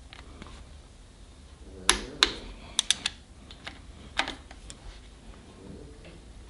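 Ratchet and socket on the camshaft sprocket bolts: a handful of sharp, irregular metallic clicks between about two and five seconds in.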